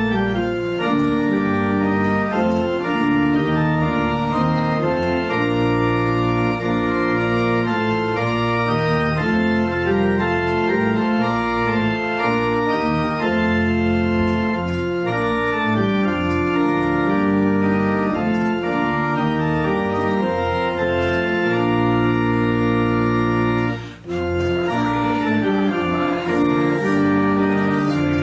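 Organ playing a hymn in held chords. It breaks off briefly near the end and then starts the next phrase.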